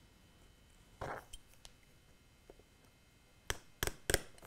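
A scalpel blade cutting small 3D-printed parts off their mounts on a cutting mat: a soft scrape about a second in, then a quick run of sharp clicks near the end as the blade cuts through.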